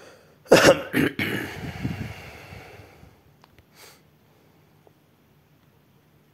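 A man clears his throat with two sharp coughs about half a second apart, then a breathy tail that fades over a couple of seconds.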